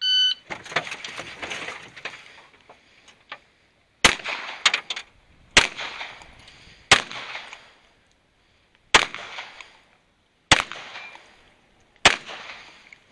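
A short electronic shot-timer start beep, then a few seconds of scuffing and handling noise as the pistol is taken up off the boat. Six pistol shots follow, fired singly about one and a half to two seconds apart, each ringing out across the range.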